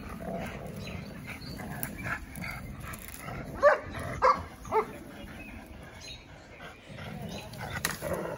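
Two dogs tugging and shaking a pine branch between them, with three short, loud barks a little past halfway.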